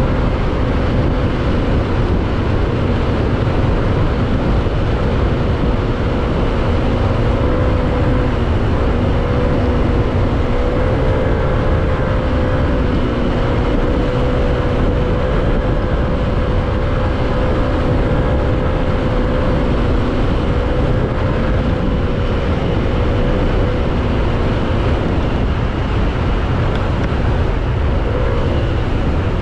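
A 155 cc motorcycle engine running steadily at cruising speed, a constant drone under heavy wind rumble on the microphone. Near the end the engine note shifts briefly as the bike slows.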